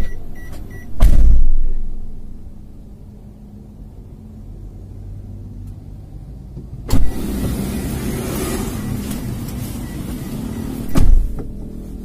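Car interior with the engine idling: a heavy thump about a second in, a steady low idle, then a sudden, louder steady rush of outside noise from about seven seconds in, broken by another thump about eleven seconds in.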